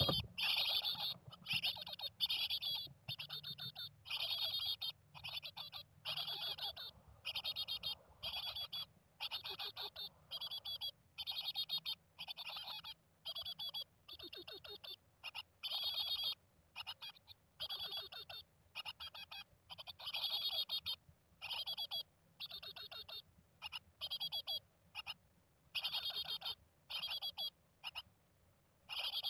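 Japanese tit nestlings, 16 days old, calling from inside the nest box in a steady run of short, high call bursts, about one or two a second. There is a low bump at the very start.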